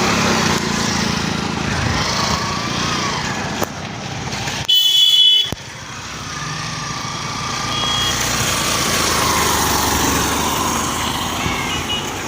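Road traffic noise with a vehicle horn sounding sharply for about half a second, about five seconds in, and fainter short toots later.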